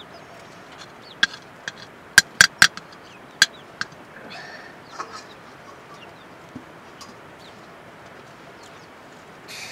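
A metal spoon clinking sharply against the rim of a cooking pot of rice, about eight knocks in the first four seconds, the loudest a quick run of three. A chicken clucks softly in the background.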